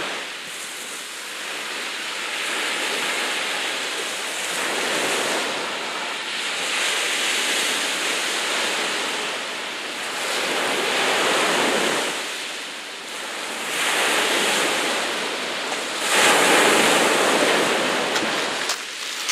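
Choppy sea waves washing and surging, the rush swelling and easing every three to four seconds; the sound cuts off suddenly at the end.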